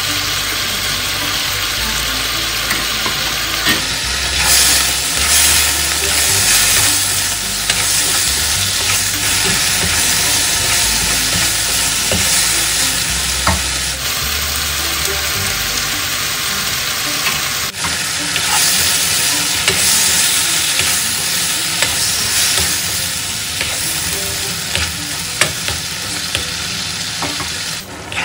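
Chicken thigh pieces sizzling in hot oil in a nonstick wok while a spatula stirs and scrapes them with garlic, ginger, onion and tomato, with frequent small clicks of the spatula against the pan. The sizzle changes abruptly a few times where stretches are cut together.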